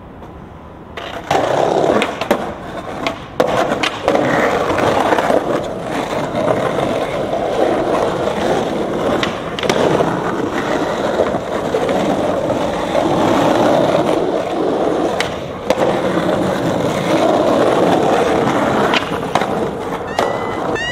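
Skateboard wheels rolling over asphalt street, starting about a second in, with sharp wooden clacks of tail pops and landings now and then.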